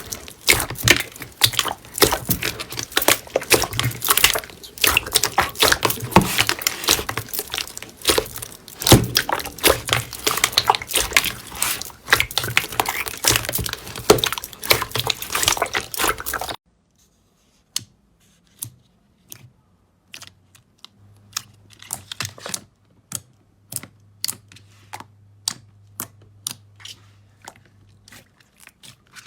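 Slime being squeezed and worked by hand, a dense run of wet crackling and squelching pops. About two-thirds of the way through it cuts abruptly to sparser, separate crisp clicks and pops.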